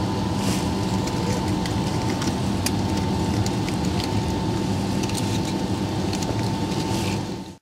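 Steady cabin noise of a Boeing 757-200 taxiing after landing: a low hum from the jet engines at idle with air hiss, a thin steady whine, and small rattles now and then. It fades out at the very end.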